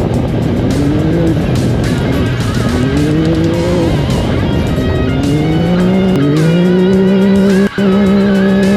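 Off-road race vehicle's engine accelerating hard, its pitch climbing and dropping back three times as it shifts up, then holding steady at speed, with music playing over it. The sound cuts out for an instant near the end.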